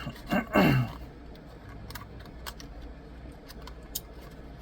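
Scattered light clicks and taps of the phone box's cardboard and plastic packaging being handled as the USB-C cable is put back in.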